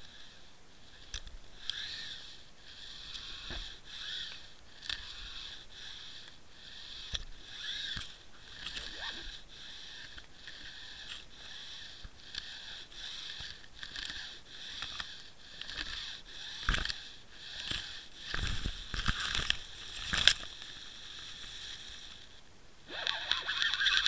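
Underwater sound from a Water Wolf fishing camera housing drifting through kelp over the rocky bottom: a steady water hiss with scattered clicks. About two thirds of the way in come several dull knocks as the housing bumps, and near the end a louder rough rubbing as kelp drags across it.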